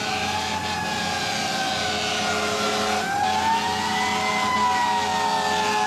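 Emergency vehicle siren in a slow wail, its pitch sinking gently, then rising again from about three seconds in and falling away, over the steady noise of street traffic.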